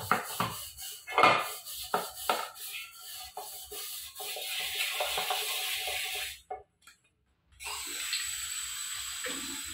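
An aluminium pot being scrubbed by hand, with sharp knocks and clanks of metal against the sink among the rubbing. After a brief silence, a tap runs steadily as a pot is rinsed under it.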